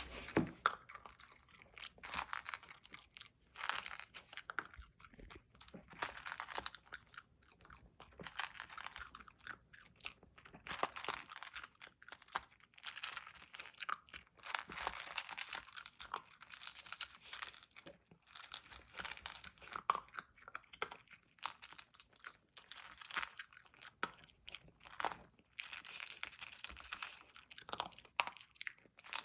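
A dachshund eating from a slow feeder bowl: irregular crunching and chewing, in clusters of quick clicks and crackles.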